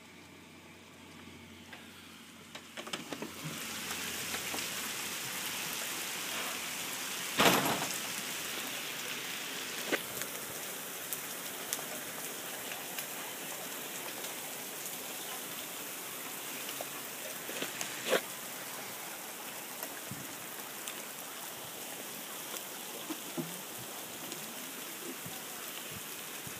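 Hail coming down with rain: a dense, steady patter of hailstones on grass and pavement, growing louder about three seconds in, with a few sharper knocks, the loudest about seven seconds in.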